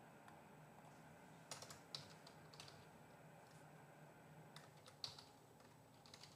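Faint computer keyboard typing: two short bursts of keystrokes, one about a second and a half in and another about five seconds in.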